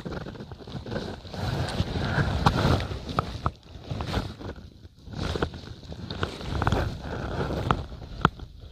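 Wind rumbling on the microphone, rising and falling, with scattered small clicks and rustles of fishing gear being handled at the rod stands.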